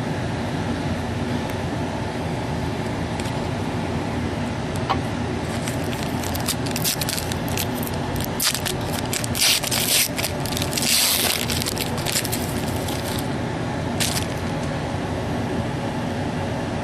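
Trading cards being handled and shuffled: scattered clicks and short crackling scrapes of card stock sliding against card stock, densest in the middle, over a steady room hum.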